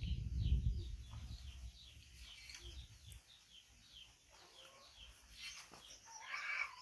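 Small birds chirping, short falling notes repeated many times over. A low rumble fills the first three seconds.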